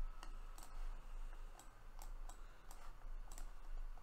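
Irregular light clicks and taps of a stylus on a digital drawing screen, selecting the eraser tool and erasing, over a steady low electrical hum.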